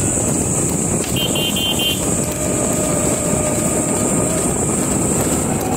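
Steady running noise of a vehicle moving at speed beside a buffalo cart: engine, tyre and road rumble with wind on the microphone, at an even level and without a break.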